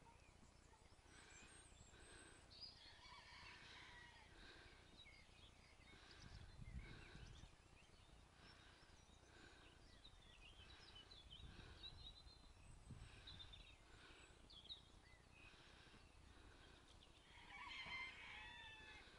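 Faint outdoor ambience of small birds singing and calling, one of them repeating a short note about once a second, with a louder burst of calls near the end. A few brief low rumbles come and go in the middle.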